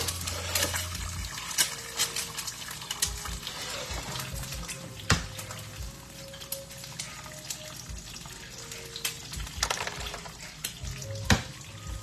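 Kitchen sounds: a steady watery hiss with many small clicks and a few louder knocks of cookware.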